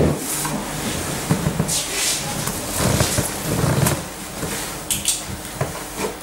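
Irregular rustling and light knocks from small objects being handled, with no steady sound running underneath.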